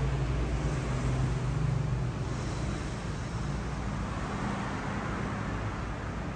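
Steady background noise: a low rumble with hiss and no clear events, with a low hum in the first two seconds.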